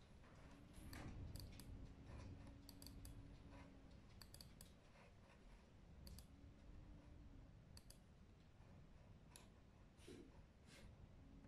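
Faint, scattered clicks of a computer mouse and laptop keyboard in use, several coming in quick pairs or threes.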